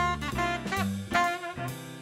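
Alto saxophone playing a phrase of quick notes, one of them bent in pitch, over upright bass and drum kit in a hard bop jazz quintet.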